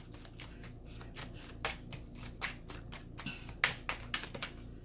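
A deck of Lenormand cards being shuffled by hand: irregular soft clicks and snaps of the cards against each other, the sharpest about three and a half seconds in.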